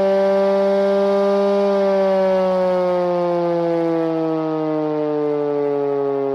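Federal Signal siren, its chopper spun by an electric drill, sounding a loud steady wail that starts slowly falling in pitch a little under two seconds in as it winds down. The chopper runs balanced.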